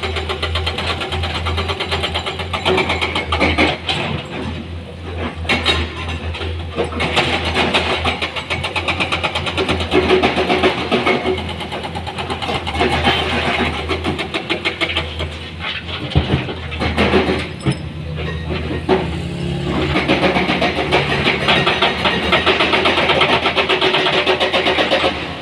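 Heavy diesel machinery running steadily, with a constant low hum and irregular knocks and clatter over it.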